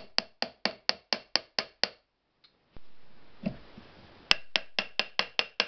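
A ratchet wrench turning a bolt on an electric motor's end cover: a run of rapid, even metallic clicks, about four a second. The clicks stop for about two seconds and then start again.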